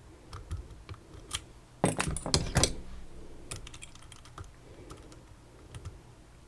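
Small metal clicks and light rattling from lock-picking tools working inside a Tesa TK100 lock, with a louder cluster of clattering clicks about two seconds in.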